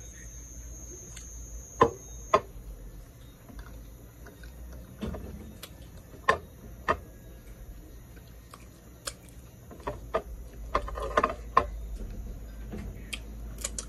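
Close-miked eating sounds: wet smacks and clicks of chewing mouth and sticky fingers on sauced rotisserie chicken, coming at irregular intervals, with a quick run of them near the end.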